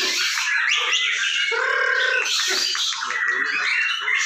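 Several caged white-rumped shamas (murai batu) singing at once in competition, a dense, unbroken tangle of overlapping whistled and chattering phrases.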